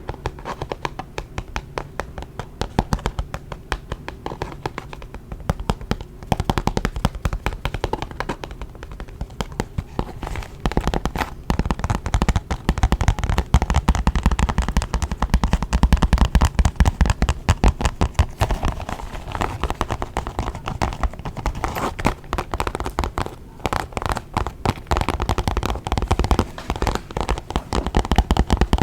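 Fingers tapping quickly and continuously on a makeup bag, a dense stream of small taps that grows fuller and heavier from about six seconds in.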